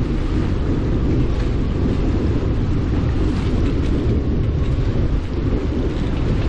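Wind buffeting the microphone over the rush of water along the hull of a sailboat under sail: a steady, loud, low rumble with no pauses.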